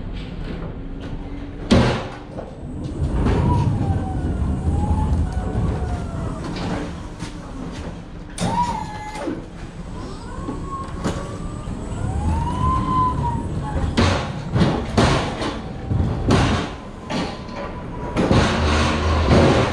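An electric pallet truck pulling a loaded pallet across a truck trailer's floor: a low motor hum with clunks and knocks, a cluster of them in the last few seconds, and squeaks that rise and fall in pitch.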